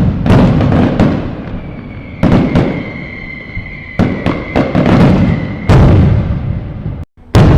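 Fireworks going off: about a dozen sharp bangs, some in quick clusters, each trailing off in a long rumble. A steady high whistle sounds through the middle. The audio cuts out for a moment near the end, and then another bang follows.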